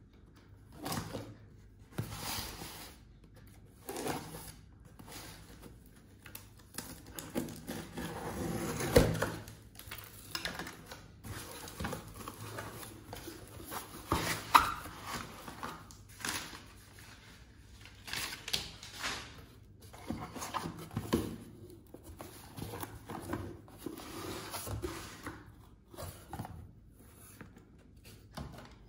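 A corrugated cardboard shipping box being opened by hand: flaps pulled and folded back, and crumpled brown kraft packing paper rustling and crinkling as it is pulled out, in an irregular run of scrapes and rustles. A few sharper knocks stand out, the loudest about nine seconds in and again around fourteen seconds.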